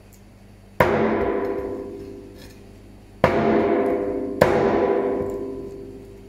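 Three heavy cleaver chops into wild boar meat on a cutting board, the first about a second in and the last two close together. Each is a sharp strike followed by a ringing tone that fades over a second or two.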